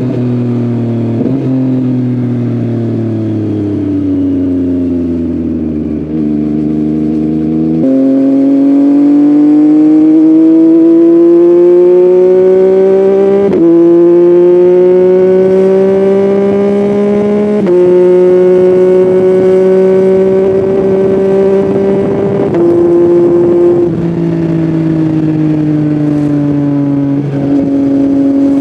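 Yamaha MT-09's three-cylinder engine through an Akrapovic full-system exhaust, heard from the bike while riding. The engine note falls as the bike slows for the first eight seconds, then climbs steadily under acceleration through a couple of gear changes and levels off toward the end.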